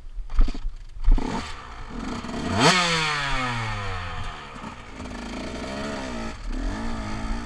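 KTM 125 two-stroke dirt bike engine: two sharp knocks in the first second, then the engine revs up steeply and winds down slowly over about two seconds. Two shorter throttle blips follow near the end.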